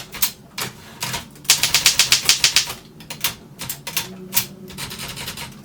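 1936 Seidel & Naumann Ideal office typewriter being worked by hand: a few separate mechanical clicks, then a quick run of about eight strokes a second, then more scattered single clicks.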